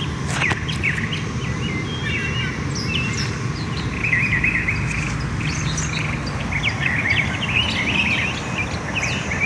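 Songbirds chirping and trilling in quick, overlapping calls, over a steady low background hum.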